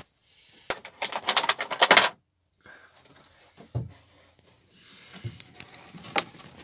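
Handling noise from someone working inside a cramped under-floor locker: a burst of rustling and clattering lasting about a second and a half, then a few soft knocks and clicks.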